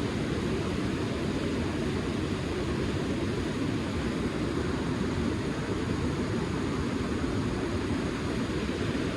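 Steady rushing of a fast-flowing river, an even noise without breaks.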